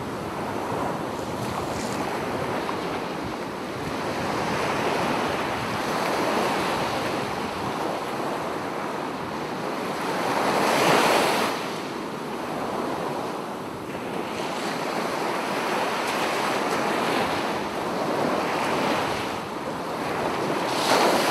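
Sea surf breaking and washing up a sandy beach, with wind buffeting the microphone. The rush of the waves swells and falls every few seconds, loudest about halfway through and again at the end.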